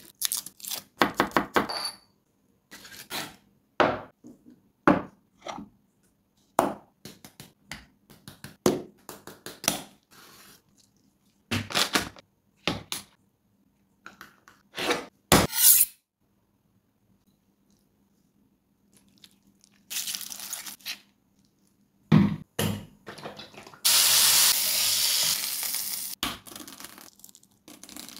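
A string of close-up food-prep sounds: garlic cloves crushed and cracking on a wooden chopping board, then knife and spoon taps and scrapes against a ceramic bowl as spices, sauce and butter go in. Near the end a steady hiss runs for about two seconds, followed by a crackle of a boiled quail egg shell rolled on the board.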